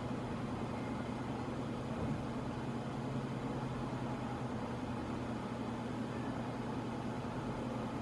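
Arno 40 cm electric fan running steadily: an even rush of air with a low, constant motor hum underneath.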